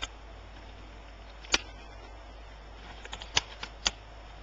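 Sharp plastic clicks as a dental spatula pries a laptop optical drive's plastic faceplate off its snap-in clips: one about a second and a half in, then a quick run of four or five near the end, two of them loud.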